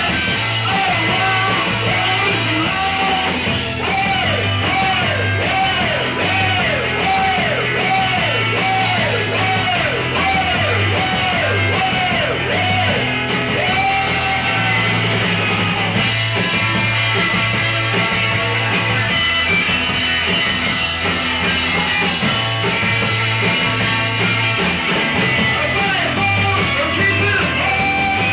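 Live rock band playing, with drums, bass and guitars. A high melodic figure swoops up and down over and over, starting about four seconds in and lasting about ten seconds.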